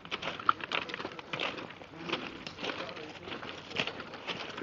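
Footsteps of several people walking on railway track ballast, an irregular crunching of loose stones underfoot.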